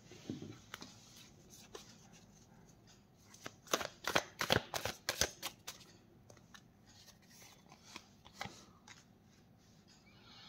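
Tarot cards being shuffled and handled: a quick run of sharp card flicks and snaps around the middle, then a few single taps as a card is set down on the wooden table.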